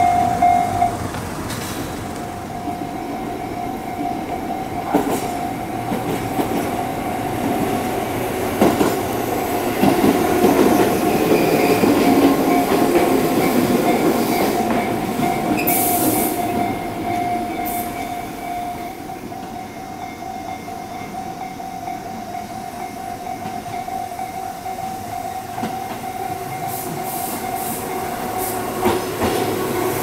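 Japanese railway level-crossing bell ringing steadily while a Tobu 8000-series two-car electric train runs past over the crossing. The train's wheels on the rails are loudest about ten seconds in.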